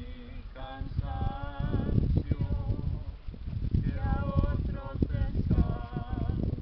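Music with singing: a voice holds wavering notes in several phrases, over a loud, low, noisy rumble.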